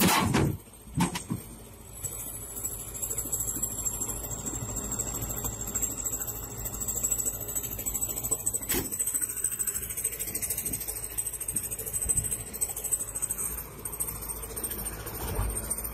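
Heavy machinery running steadily, with a loud knock at the very start and a second, smaller knock about a second in.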